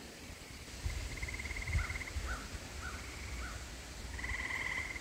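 Animal calls: a pulsed trill about a second long, four short chirps, then a louder trill near the end, over a low wind rumble on the microphone.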